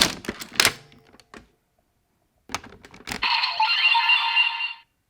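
Hard plastic clicks and clacks of the DX Barid Rex Vistamp toy being handled, inserted and turned, then about three seconds in the toy's electronic sound effect plays through its small built-in speaker for about a second and a half.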